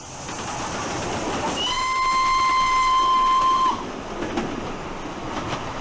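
A train running with a steady rushing noise, and a single train whistle sounding as one held note for about two seconds near the middle. A few faint clicks follow near the end.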